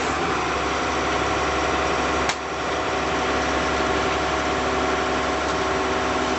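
Heavy machine's engine running steadily, with a brief break about two seconds in.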